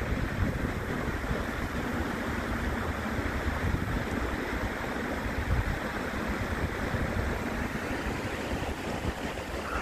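Shallow stream running over stones, a steady rush of water, with wind rumbling on the microphone.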